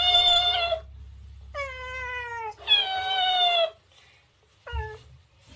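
A cat meowing and a toy dancing cactus playing each meow back higher-pitched and louder: two meow-and-echo pairs, then one short falling meow near the end.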